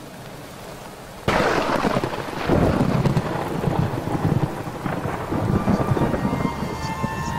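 Heavy rain hissing steadily, then a sudden thunderclap about a second in that rolls on as a long rumble under the rain.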